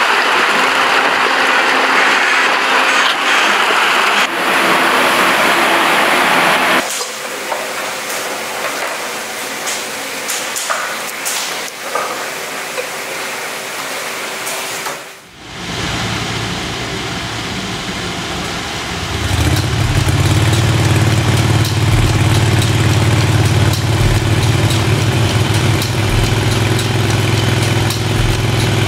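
Water churning and splashing as milkfish thrash in a harvest net, then a quieter stretch of steady machine hum, and from about two-thirds of the way in a small engine running steadily, driving a pipe raft across the fish pond.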